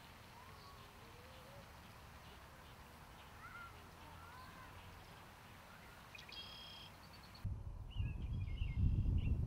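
Quiet outdoor ambience with scattered bird calls and chirps. About seven and a half seconds in, a cut brings a loud low rumble of wind on the microphone, with birds still chirping over it.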